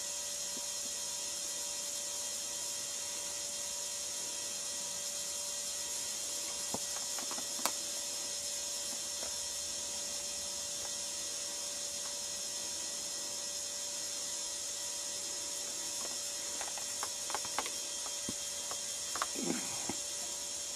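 Steady hiss with a faint hum from the camcorder's own noise. A couple of sharp clicks come partway through, and a cluster of clicks and ticks comes in the last few seconds, typical of the camera being handled during a pan.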